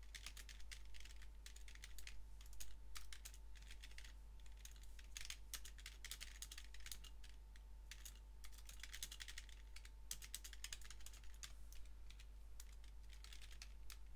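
Typing on a computer keyboard: quick runs of keystrokes with short pauses between them, as code is typed in.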